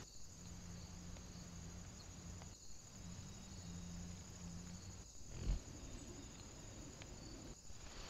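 Faint background hiss and a low hum from a trail camera's microphone, dropping out briefly about every two and a half seconds. There is a single low thump about five and a half seconds in.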